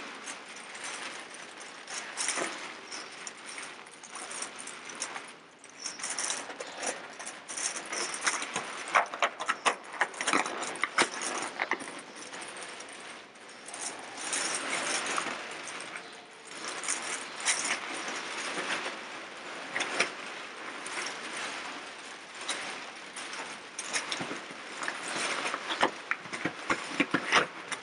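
Inflated thin plastic bags crinkling and rustling as a person moves among them, a dense stream of crackles and small clicks that swells and eases, with a brief lull about five seconds in.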